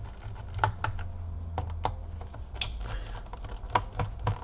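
Irregular small sharp clicks and taps of a screwdriver and small screws against the plastic bottom case of an Asus X58L laptop as its back screws are removed, over a low steady hum.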